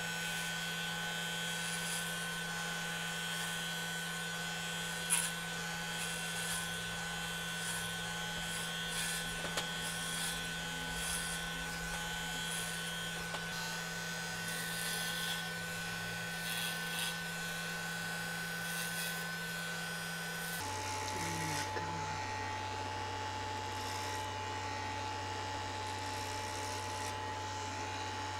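Corded electric hair clippers buzzing steadily while shaving hair close to the scalp. The buzz drops to a lower pitch about twenty seconds in.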